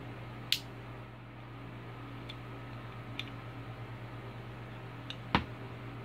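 Metal clicks from a stainless steel multi-tool pliers being handled and its folding parts worked: two sharp clicks, one about half a second in and a louder one near the end, with a few fainter ticks between them. A steady low hum runs underneath.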